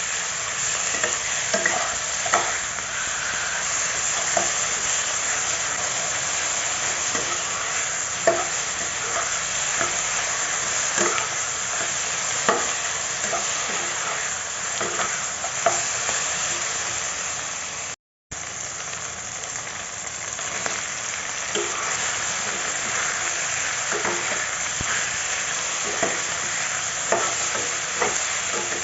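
Chicken, potato and carrot stir-frying in a pan: a steady sizzle with a spatula stirring and scraping, giving short clicks and taps every second or so. The sound cuts out completely for a moment about two-thirds of the way in.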